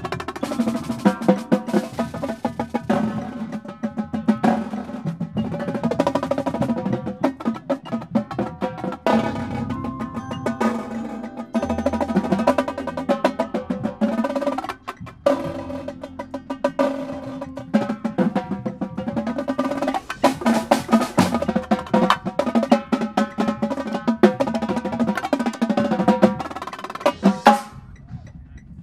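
Marching drumline playing together: tenor drums, snare drums and bass drums in fast, dense strokes and rolls. The playing stops about a second before the end.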